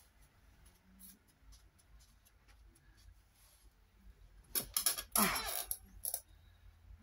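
A sheet of paper rustling and crinkling as it is handled, starting about four and a half seconds in and lasting under two seconds, after a quiet stretch with a few faint clicks.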